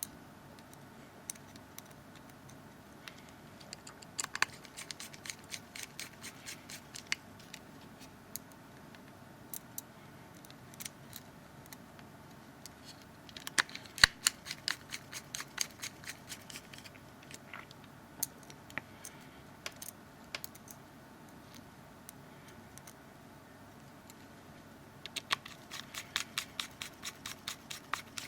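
Small T5 Torx screwdriver driving tiny screws back into a mobile phone's frame: runs of quick, light clicks and scratches, in three main bursts.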